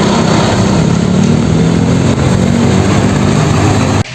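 Truck engine running steadily and loudly, then cutting off abruptly near the end.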